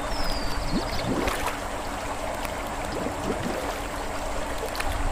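Swimming-pool water sloshing and gurgling as a swimmer doing a bubbling drill ducks his head under, breathes out underwater and comes back up.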